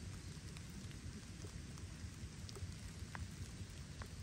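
Steady rain falling, an even hiss with scattered single drops ticking close by.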